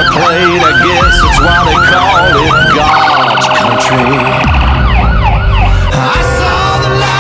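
Electronic emergency siren on a Ford Explorer Police Interceptor Utility fire chief's car, sounding a yelp that sweeps up and down about three times a second. Around the middle it switches briefly to a much faster pulsing tone, then goes back to the yelp.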